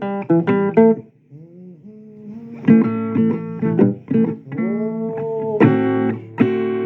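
Blues guitar picking, stopping about a second in and starting again after a short pause, with a sung "oh" near the end.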